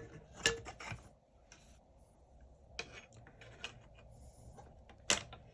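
Footrest parts being handled and slid back into place: scattered light clicks, knocks and scrapes, a few louder near the start, about three seconds in and near the end.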